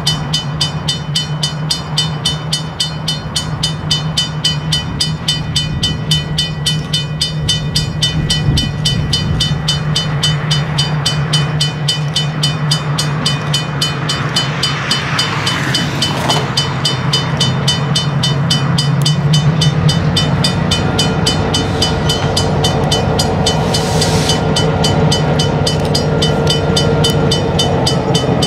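Diesel locomotive approaching at slow speed, its engine running with a steady low drone that grows louder as it nears, while its bell rings continuously. Two brief hissing or screeching flares come from the train, about halfway through and again a little before the end.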